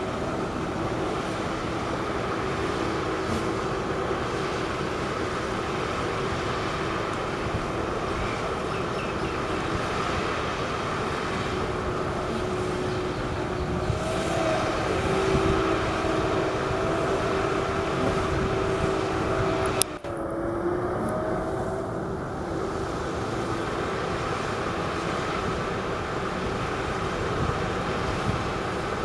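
Heavy machinery engines running steadily: a constant mechanical drone with a held humming tone, broken by a brief dip about twenty seconds in.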